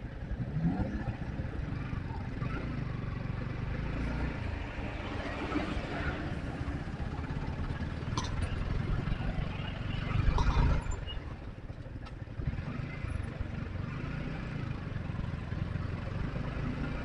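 Yamaha R15 V4's single-cylinder engine running at low speed in slow traffic, with road and traffic noise, briefly louder about ten seconds in.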